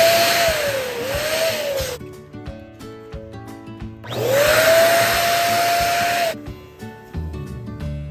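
Electric balloon pump running in two bursts over background music: the first is already going and cuts off about two seconds in, and the second starts with a rising motor whine a couple of seconds later and runs for about two seconds.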